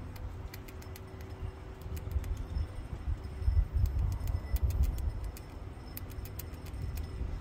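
Outdoor background: a low rumble that swells for a couple of seconds in the middle, with scattered faint ticks over it. The feeding ants themselves make no audible sound.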